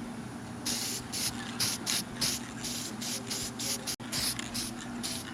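Aerosol can of lacquer interior dye spraying in about a dozen short hissing bursts, light coats being laid onto a plastic kick panel.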